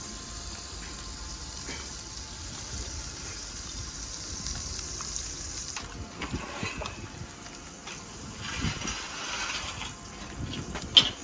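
A steady hissing, rushing noise like pouring or gushing water. About six seconds in it gives way to uneven rustles and a few sharp knocks, the loudest just before the end.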